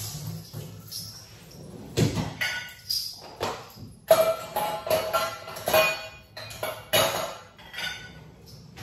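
Background music with a percussive beat about twice a second, starting about two seconds in.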